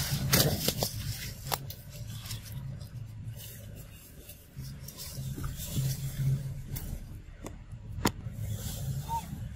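Dry leaves and grass rustling and scraping as they are stepped through and brushed against, with a few sharp snaps of twigs, the clearest near the end; a steady low hum runs underneath.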